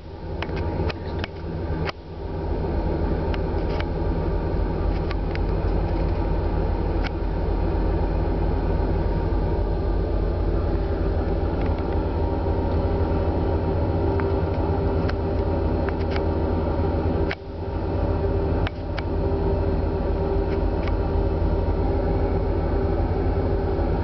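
Steady low drone of a passenger ferry's engines and machinery heard inside a cabin: a deep hum with several steady tones over it, broken by a few light clicks.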